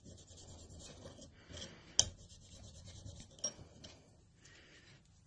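Cotton pad wet with nail polish remover rubbed over a small piece of metal sheet, a soft scratchy rubbing as sticky masking-tape residue is cleaned off. A sharp click about two seconds in, and a smaller one about a second and a half later.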